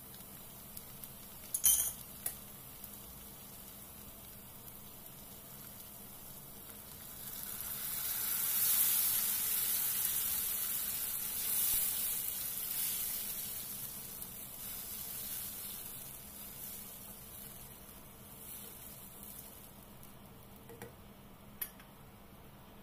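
Tomato and onion sauce sizzling in a hot non-stick frying pan as a spatula stirs it; the sizzle swells about seven seconds in and slowly dies down toward the end. A few sharp clicks of a spoon on the pan come near the start, and two more near the end.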